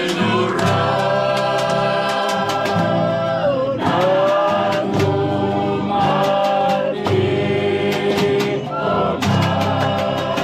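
Background music: a choir singing long held notes in harmony, over a steady beat.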